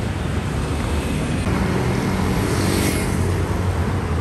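City street traffic: vehicle engines and tyres running steadily, with one vehicle passing closer about two and a half seconds in.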